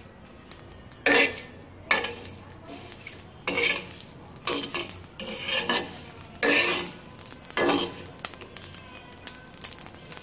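A steel spoon scraping and stirring whole spices (cumin seeds, bay leaves, cardamom, dried chillies) across a flat griddle as they are lightly roasted. About seven short scrapes come roughly a second apart and stop about eight seconds in.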